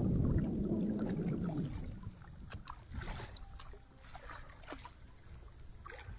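Small waves lapping and splashing against rocky shallows. Wind rumbles on the microphone for about the first two seconds, followed by a few short, soft splashes.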